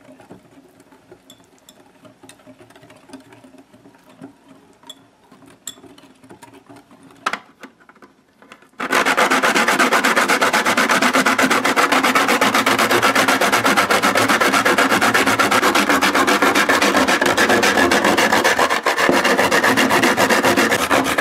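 Faint clinking of a wire whisk stirring cornmeal into milk in a glass bowl; then, about nine seconds in, loud rapid rasping of nutmeg being grated on a fine metal hand grater, stroke after stroke.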